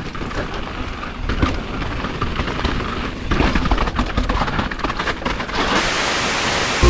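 Mountain bike ridden fast down a rough dirt and stone forest trail: tyres crunching over loose ground, with the frame and parts rattling and knocking over bumps, and wind noise on the bar-mounted camera. It grows louder toward the end.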